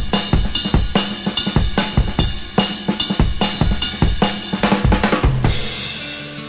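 Drum-kit music: a steady, fast beat of about three hits a second that fades down near the end.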